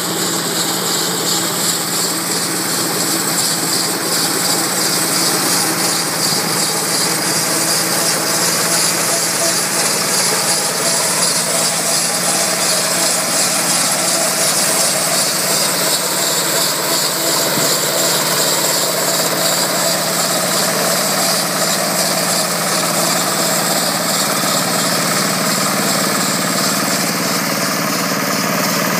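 Diesel engine of a small walk-in mini combine harvester running steadily as the machine cuts and threshes grain.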